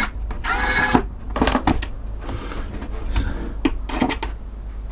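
Xiaomi Mijia electric precision screwdriver, with an all-metal gearbox, running in short spells as it unscrews an RC servo: a small geared motor whines briefly, with sharp clicks from the bit and the screws.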